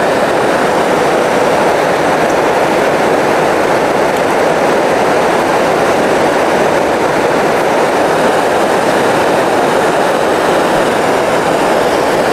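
Steady rushing of a fast river running over rocky rapids.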